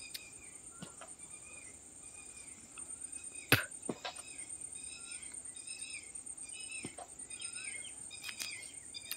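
Repeated short bird chirps over a steady high-pitched insect drone, with a few sharp knocks, the loudest about three and a half seconds in.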